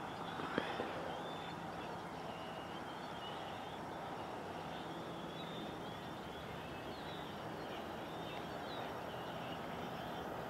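Quiet outdoor ambience: a steady distant rush with small birds chirping faintly throughout, and a single light click about half a second in.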